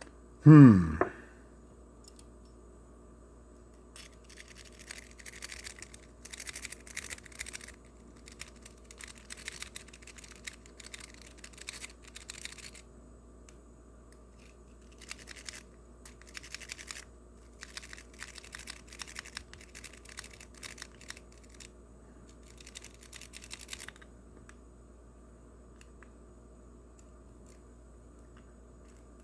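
A short, loud tone sweeping steeply down in pitch right at the start. Then a rake is worked rapidly in and out of a pin tumbler lock, making bursts of scratchy clicking and rattling with short pauses, from about four seconds in until a few seconds before the end.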